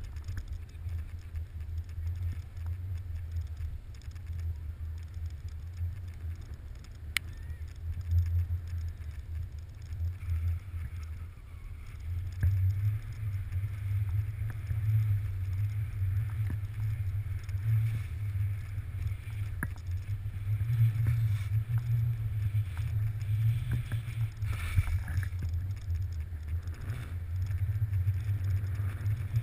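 Wind buffeting the microphone of a moving camera during a fast ski descent, a heavy, uneven low rumble, with the hiss of skis carving and spraying snow, which gets louder about a third of the way in.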